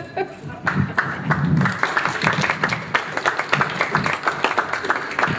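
Audience applauding, dense clapping that starts about a second in.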